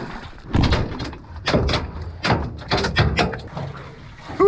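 Hooked small kingfish thrashing and splashing beside a boat, with a quick run of sharp knocks and thuds over about three seconds.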